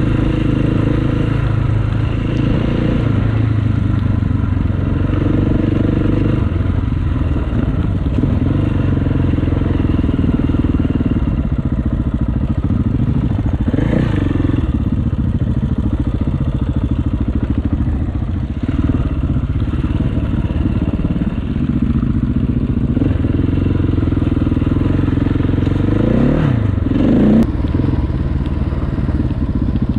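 Enduro motorcycle engine running steadily under way. Its pitch rises and falls briefly about halfway through and again near the end as the throttle changes.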